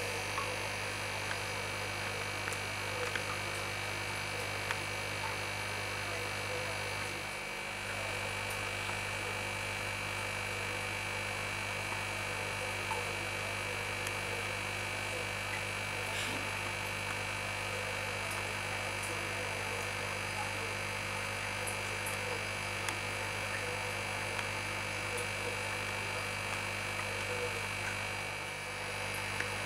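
Steady electrical mains hum, a strong low drone with several fainter steady higher tones over a light hiss, dipping briefly twice.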